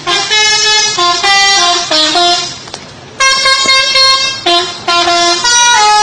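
Indonesian 'telolet' bus horn, a multi-note musical air horn, playing a tune: a run of short stepped notes, a brief pause, then a long held chord about three seconds in, followed by more short notes.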